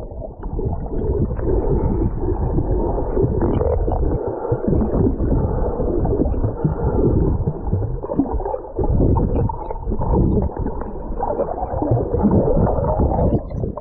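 Muffled underwater sound picked up by a submerged GoPro 8 Black: water churning and bubbling around the camera as a snorkeler swims, heard as a dull, steady rumble with no clear high tones.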